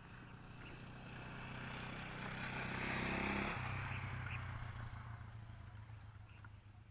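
A motor vehicle passes by: its engine grows louder, drops in pitch as it goes past about three and a half seconds in, and then fades away.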